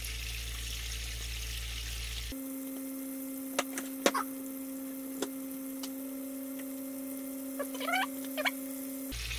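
Fish fillets frying in hot oil and butter, a steady sizzle that cuts out abruptly about two seconds in. A steady low hum with a fainter higher tone above it takes over, broken by a few sharp clicks and some short rising squeaks. The sizzle comes back just before the end.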